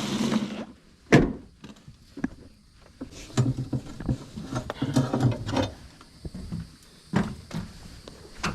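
Irregular handling noises: a sharp knock about a second in, a stretch of scraping and rustling in the middle, and more knocks near the end.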